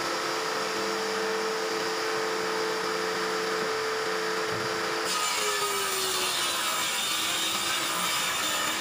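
Table saw running with a steady motor whine. About five seconds in the blade starts cutting a long wooden board, adding a rasping hiss, and the motor's pitch dips briefly under the load.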